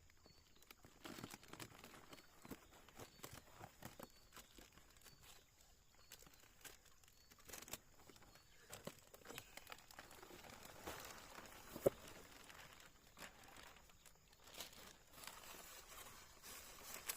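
Faint crinkling and rustling with scattered light taps and clicks, and one sharper click about twelve seconds in: handling of a plastic bag of catfish fry as it is tipped out for a look at the fish.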